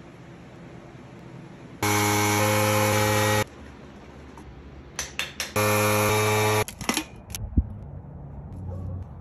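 A small handheld electric tool's motor running with a steady whine in two bursts, the first about a second and a half long and the second about a second, with a few sharp clicks between and after them.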